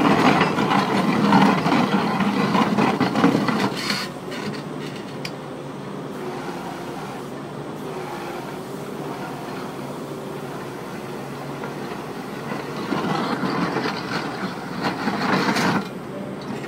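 Auger boring a pier hole into rocky ground, grinding and churning steadily as it turns. It is loudest for the first four seconds, eases off through the middle, and picks up again about thirteen seconds in.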